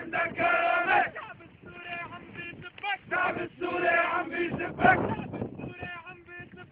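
Crowd of demonstrators chanting slogans in unison, in short sung phrases with brief pauses between.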